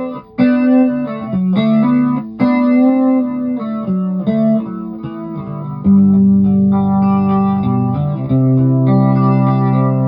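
Electric guitar played through an A/DA Flanger effects pedal, the pedal's swirling effect on the notes. Short picked notes and phrases give way to louder held chords about six seconds in.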